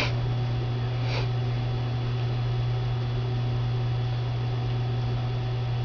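Steady low electrical hum from a solder reflow oven with its relay on and heating elements powered, ramping up toward the peak temperature. Two brief ticks sound, one at the very start and a fainter one about a second in.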